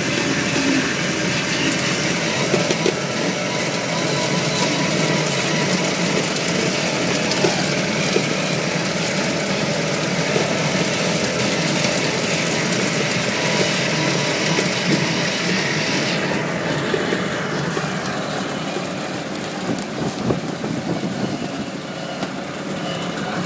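An Argo six-wheeled amphibious ATV's engine running steadily under way on a bumpy woodland trail, heard from the driver's seat, with scattered knocks and rattles from the bouncing vehicle. The sound dulls a little about two-thirds of the way in.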